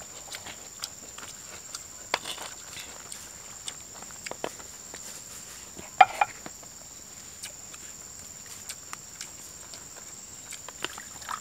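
Steady high insect buzz, with scattered small clicks and knocks from people eating by hand off plates and leaves; one sharper clack about six seconds in is the loudest sound.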